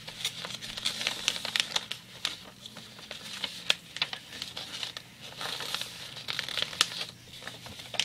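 A sheet of paper being folded and creased by hand: irregular crinkling with many small sharp crackles and snaps of the paper.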